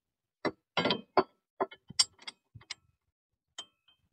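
Steel three-point hitch lift links clanking against the tractor's hitch pins and frame as they are handled and fitted: a string of about a dozen sharp metallic knocks and clinks, one ringing briefly near the end.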